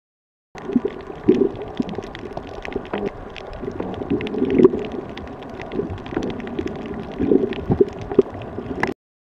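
Water heard through a camera held underwater: muffled gurgling and sloshing, with many sharp clicks and crackles scattered through it. It starts about half a second in and cuts off suddenly just before the end.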